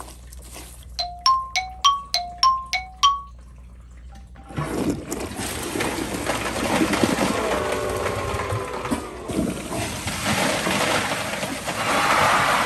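A quick run of about eight bright chime notes at two alternating pitches, then a toilet flushing: loud rushing, gurgling water starting suddenly about four and a half seconds in and running on.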